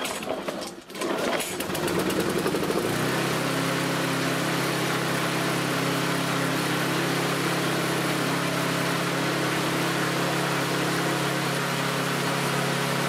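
Lawnmower's petrol engine starting about two seconds in and then running fast and steady, with no hunting. It is running way too fast because the new aftermarket governor springs have too much tension in the bigger spring.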